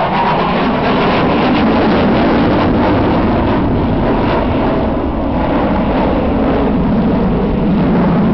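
Jet aircraft engine roar as the plane flies overhead: a loud, steady noise.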